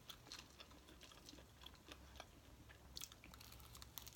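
Faint chewing and biting on crispy fried chicken wings: scattered wet mouth clicks and small crunches, with a crunchier bite about three seconds in.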